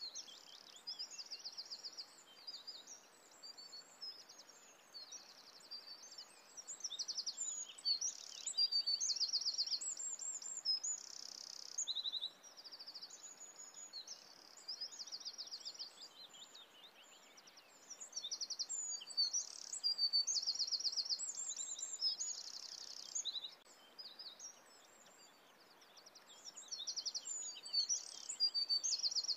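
Many songbirds singing together: overlapping chirps and rapid trills, louder in some stretches and thinner in others, over a faint steady hiss.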